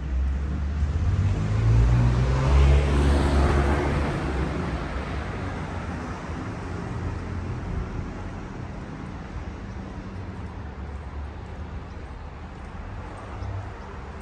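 A car driving past on the street, its engine and tyre noise swelling to a peak about two to four seconds in, then fading away into low steady street noise.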